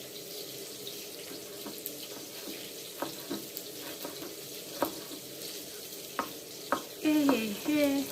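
A few sharp, scattered knife taps on a board as garlic is cut into small pieces, over a steady hiss.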